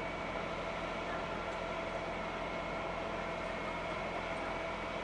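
Scania fire truck's diesel engine running steadily at a fire scene's pump and aerial duty, a constant drone with a faint steady whine over it.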